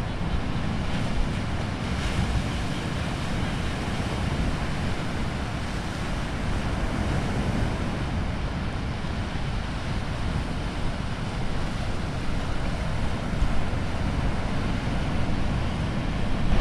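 Wind buffeting the microphone over the steady wash of ocean surf, with a few louder gusts near the end.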